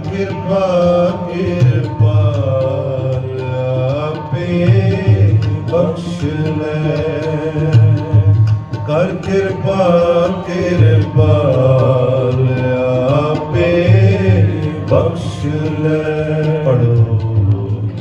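Sikh kirtan: a male voice singing a devotional hymn in a gliding, melismatic line over sustained harmonium chords, with tabla.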